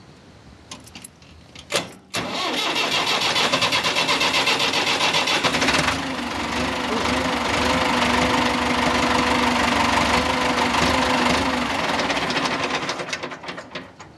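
An engine, started with the throttle off, catches suddenly about two seconds in after a few clicks. It runs hard with a fast, even beat for a few seconds, then settles to a steadier, quieter run. Near the end it fades and dies: it stalls shortly after starting and will not keep running.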